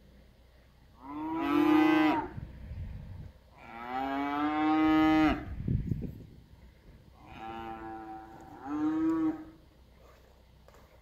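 Cattle mooing, four calls: two long ones, then two shorter ones close together near the end, each dropping in pitch as it ends.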